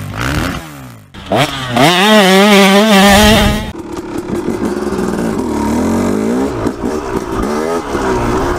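A short intro sound effect with a loud wavering tone, then a dirt bike engine running and rising and falling in pitch as the bike rides down a dirt single track.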